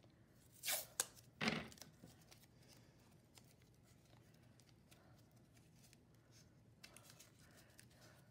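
Blue painter's tape pulled and torn, two short rips about a second in, followed by faint rustling as the tape is wrapped around a plastic drinking straw.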